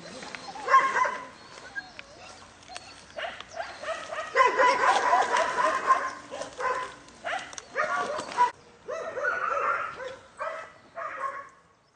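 A puppy coated in tar yelping and whining over and over, in short high cries with one longer cry a few seconds in.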